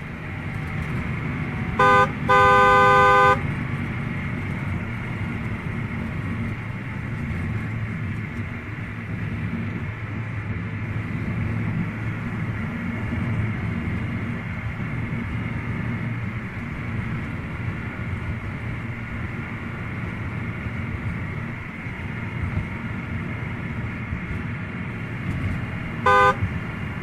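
Car engine sound effect running steadily, with a car horn: a short toot about two seconds in, straight away a longer honk of about a second, and another short toot near the end.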